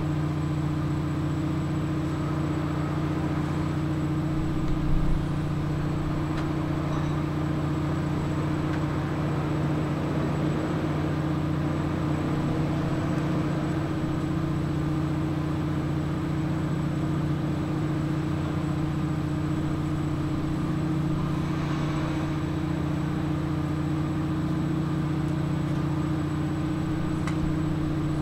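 An engine running steadily with an even, low hum, with a brief low bump about five seconds in.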